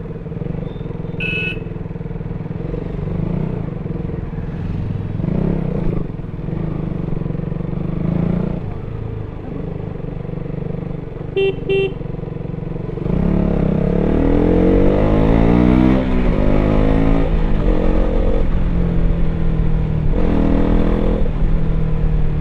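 KTM RC 200's single-cylinder engine through its stock exhaust, ridden at a steady pace. About halfway through a vehicle horn toots twice. The engine then gets louder as it accelerates, its revs rising and falling, with another rise near the end.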